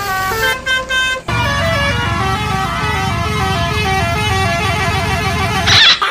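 Basuri telolet bus horn playing a tune of short stepped notes, with a low rumble underneath for most of it and a brief loud burst near the end.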